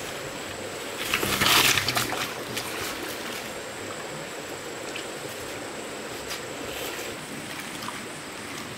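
Water sloshing and trickling, with a louder splash about a second in.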